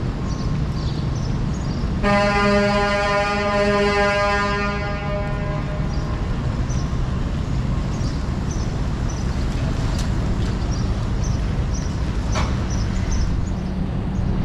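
A vehicle horn sounding one long steady blast of about three to four seconds, starting about two seconds in, over steady street traffic noise. A single sharp knock near the end.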